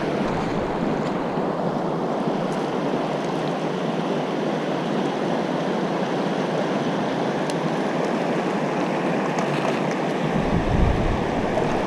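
Gallatin River rapids rushing over rocks: a steady, close wash of whitewater noise. A low rumble joins near the end.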